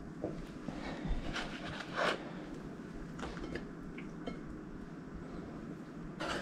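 Faint kitchen clatter of a knife and dishes: a handful of soft, scattered knocks and clicks over a low steady hum.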